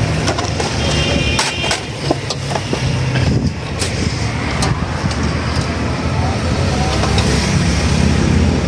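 Steady traffic and vehicle engine noise, with a few sharp clicks and knocks about one and a half, four and four and a half seconds in.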